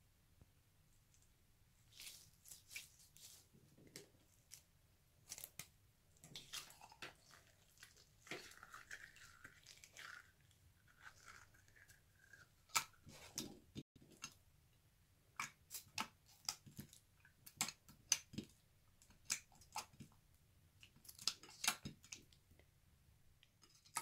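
Clear glitter-filled stress ball squeezed by hand, then its rubber skin opened and the gel filling squished and pulled in a glass dish: a faint, irregular run of small sticky clicks and crackles, with a stretch of rubbing a little past a third of the way in.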